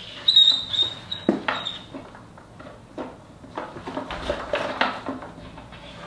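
Scattered light clicks and knocks of parts being handled and fitted in a motorcycle's headlight assembly, with a brief high squeak lasting about a second near the start.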